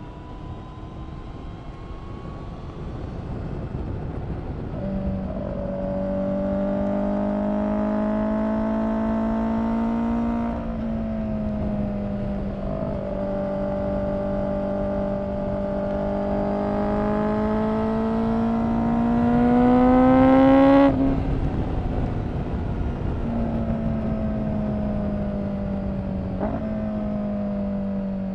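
Honda CBR1000RR-R SP Fireblade's inline-four engine running through an Akrapovic exhaust under load. The pitch climbs slowly and steps down abruptly twice, loudest just before the second drop.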